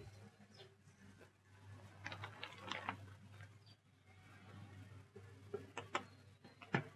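A knife slicing through a slab of smoked bacon on a wooden cutting board, heard as faint crackly clicks in two spells, about two seconds in and again near the end, over a low steady hum.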